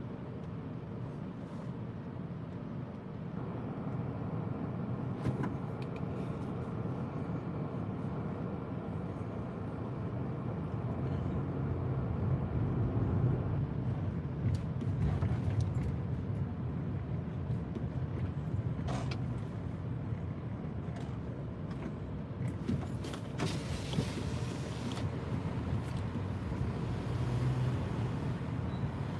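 A car heard from inside its cabin, running and rolling slowly: a low engine and tyre rumble that grows louder a few seconds in, with a few small clicks and knocks.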